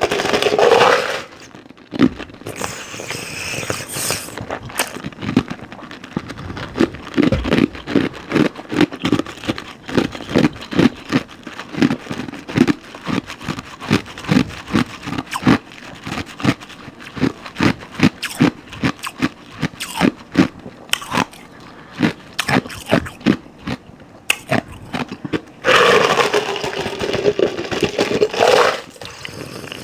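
Close-miked chewing: a steady run of crunches, about two or three a second. A longer, louder sound of about three seconds comes in near the end.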